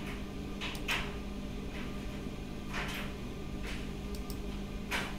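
Room tone: a steady low electrical hum, with a few faint, short, hissy sounds scattered through it.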